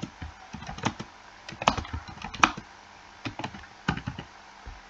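Typing on a computer keyboard: irregular keystrokes in short runs with brief pauses.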